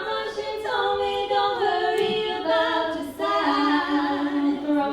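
A woman singing a cappella, holding a string of long sustained notes. The last note is held steady for well over a second.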